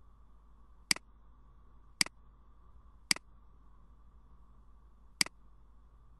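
Four sharp computer mouse clicks, about a second apart with a longer pause before the last, each with a quieter second tick just after it as the button is pressed and released, over a faint steady background hum.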